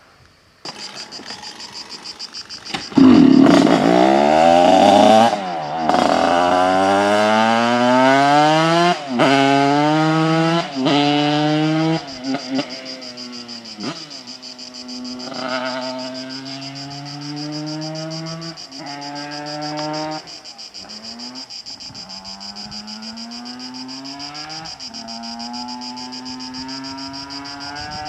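Simson moped's two-stroke single-cylinder engine, bored out to 100 cc. It picks up about half a second in and runs unevenly at low speed, then revs hard from about three seconds and accelerates through the gears, the pitch climbing and dropping at each of three quick shifts. The rest is lighter throttle, rising and easing off with further shifts.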